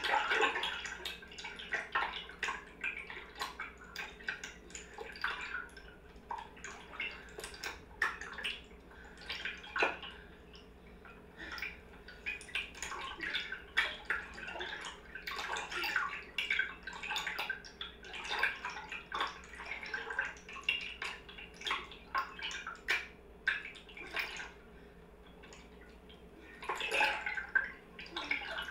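Water splashing and dripping in irregular short bursts, over a steady low hum.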